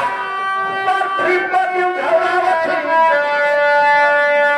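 Instrumental music: a melody on a reed instrument, moving through short notes and ending in a long held note.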